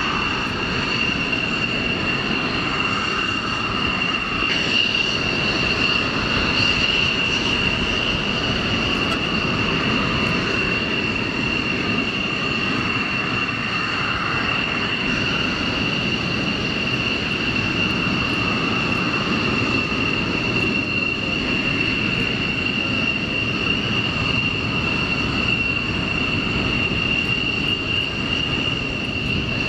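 Fokker F-16A MLU fighter jets taxiing at idle power: a steady jet engine whine with a high constant tone over a broad rumble.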